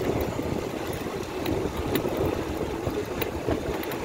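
An engine running steadily over a low, uneven rumble.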